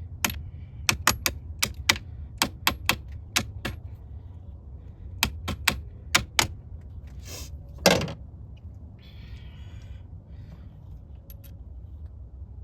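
Sharp metallic clicks in quick runs of two to four, a ratchet wrench tightening a car battery's terminal clamp. A dull knock and then a louder thud follow about 8 seconds in.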